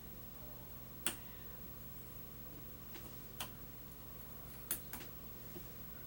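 A hook pick and tension wrench working a five-pin tumbler lock, making four short, sharp clicks a second or two apart, as the lock is picked over again after a pin was overset.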